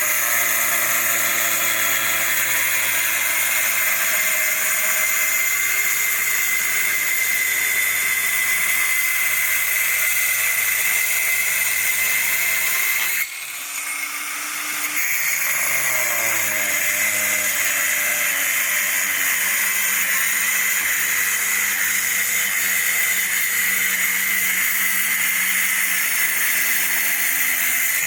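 Mitsushi MT954 600 W angle grinder free-running with no load, a steady high motor whine. About 13 seconds in the whine drops out briefly, then winds back up to speed and runs steadily again.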